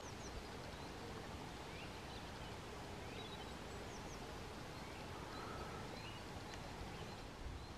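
Faint outdoor ambience, a steady low hiss with a few scattered, distant bird chirps.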